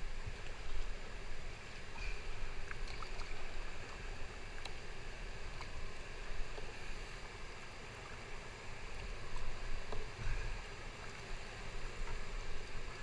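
Water lapping and trickling around a paddled board on a calm river, with scattered small drips and splashes from the paddle over a steady low rumble and hiss.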